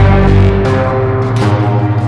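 Dark ambient synthesizer music from a Moog Matriarch analog synthesizer and an Arturia MicroFreak: a deep sustained bass drone under several held, layered tones, with the pitches shifting partway through.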